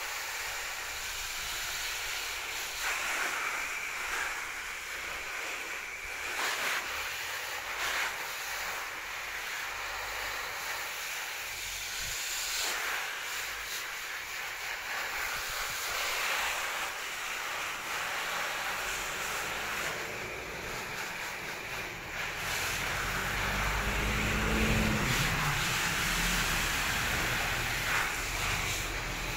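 Garden hose spray nozzle hissing as its shower of water spatters onto broad taro leaves and the ground. A low rumble swells in near the end.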